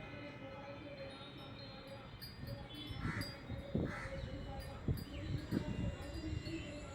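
Metal tines of a chromatic kalimba ringing on softly as the instrument is handled, with several knocks between about three and six seconds in.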